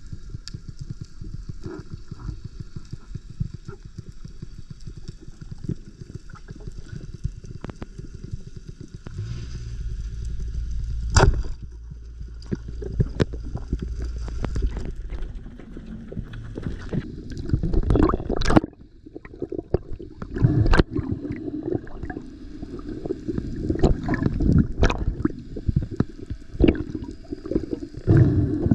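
Underwater sound picked up by a diver's camera in its housing: muffled water rushing and gurgling, with scattered clicks and a sharp knock about eleven seconds in. A low steady hum runs through the middle, and louder gurgling surges come in the second half.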